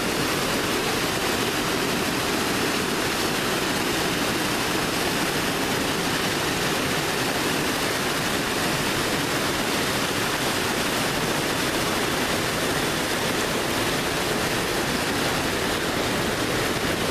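Mountain creek rushing over mossy boulders in whitewater, a steady loud rush of water.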